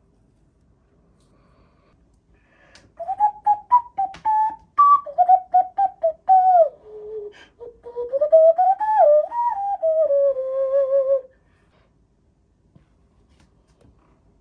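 Hand whistle (hand flute) blown through clasped, cupped hands, starting about three seconds in. It plays a run of short separate notes, then smoother sliding notes, and ends on a held low note about eleven seconds in.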